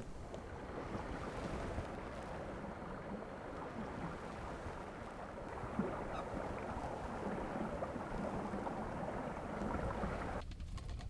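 Lake water rippling and lapping, an even wash of water noise that cuts off sharply about ten seconds in.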